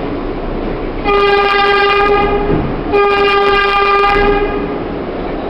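Subway train horn sounding two long, steady blasts of about a second and a half each, a short gap between them, over the continuous rumble of the train running through the tunnel.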